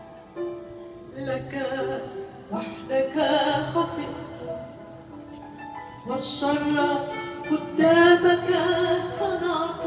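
Live performance of an Arabic hymn: a woman's solo singing voice with accompaniment, held notes with vibrato in phrases that swell about three seconds in and again near the end, quieter in between.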